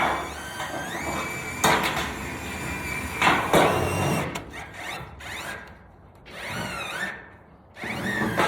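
Cordless Wachtel panel cutter running and cutting through a 26-gauge PBR steel panel: a high motor whine with squealing, crackling metal that shifts in pitch, easing off briefly twice in the second half.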